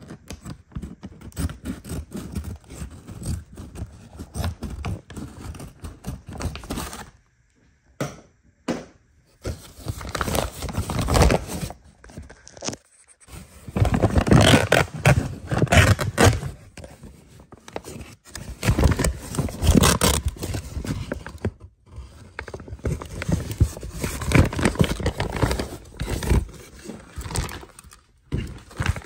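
Packaging and equipment being handled and unpacked: irregular scraping and rustling with occasional knocks, in uneven bursts with short pauses.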